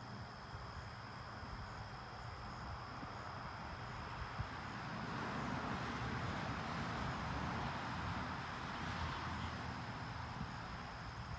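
Outdoor field ambience: insects trilling steadily at a high pitch over a low rumble, with a soft rushing noise that swells through the middle.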